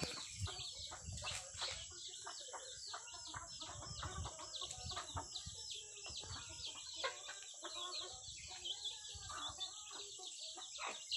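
Chickens clucking, with a quick run of short high chirps repeating two or three times a second over a steady high hiss.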